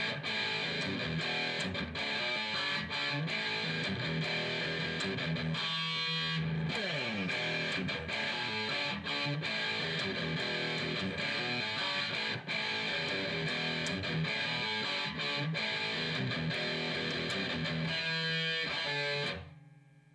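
Outro music led by strummed electric guitar, steady and dense, which stops abruptly near the end.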